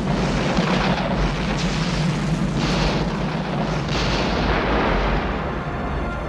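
Sound effects from an animated film's volcanic eruption scene: a continuous rumbling roar with heavier blasts coming irregularly, about once a second. Music begins to come in near the end.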